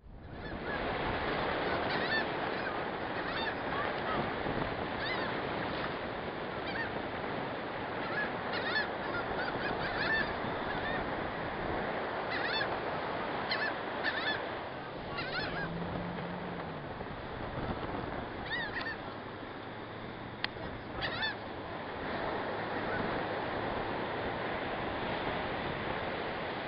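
A flock of gulls calling, with many short, sharp cries scattered throughout and overlapping at times, over a steady rushing background.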